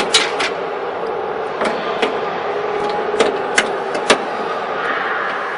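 A series of short, sharp clicks and light knocks, about eight in all and irregularly spaced, over a steady noisy background hum.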